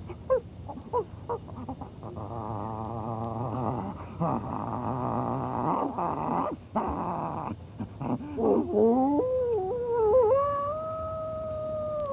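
A poisoned bird dog in distress: short whimpers, then a long wavering whine, then a drawn-out howl that rises and holds before starting to fall near the end.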